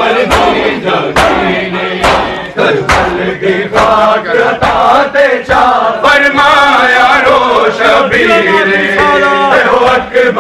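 A crowd of men chanting a Punjabi noha in unison, the recited lament with a repeated refrain, over sharp, rhythmic chest-beating slaps of matam about twice a second. The sustained chanting voices grow stronger about halfway through.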